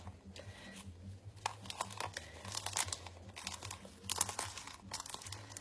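Gloved fingers rubbing and squeezing damp glitter in a container: irregular gritty rustling and crackling, with small clicks throughout.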